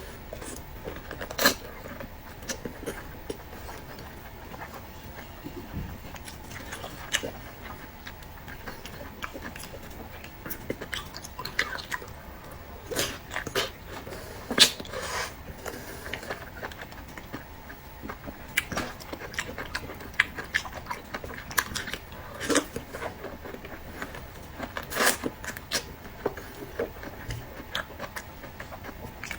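A person eating close to the microphone: chewing and biting with many irregular sharp, crunchy clicks, the loudest about a second and a half in and near the middle.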